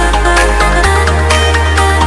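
Electronic background music with a steady beat and sustained deep bass notes; the bass changes note about a second in.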